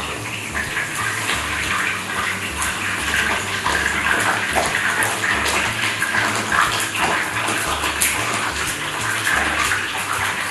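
Flour-dusted food frying in hot oil in a frying pan: steady sizzling with many small crackles.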